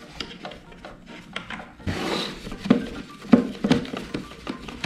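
Plastic clicks, taps and rubbing as a GoPro camera on its plastic mount is fitted onto the top mount of a Bontrager Circuit bicycle helmet, with a short scraping rustle about two seconds in and a few sharper knocks after it.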